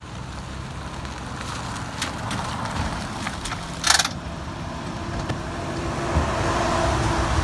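A Honda Accord sedan rolling up slowly on wet pavement and stopping, its engine running low and steady. There is a short sharp noise about four seconds in, and a steady hum from about five seconds on as the car idles.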